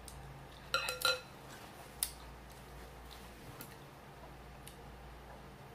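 Utensils clinking against glass bowls: two ringing clinks about a second in, another sharp tap a second later, then a few lighter taps.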